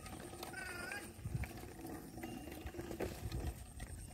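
A herd of cattle and water buffalo on the move: a short high-pitched animal call about half a second in, over a steady low hum and a few dull low thuds.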